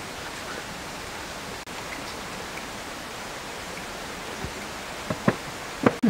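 Steady rushing of river water, with a few short sharp clicks near the end.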